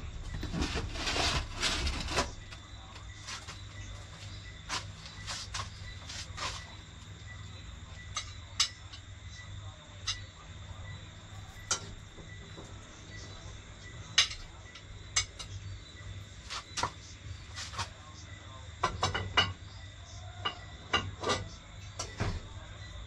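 Cutlery and dishes clinking: scattered short taps and clinks, busiest in the first couple of seconds, over a steady high insect chirr.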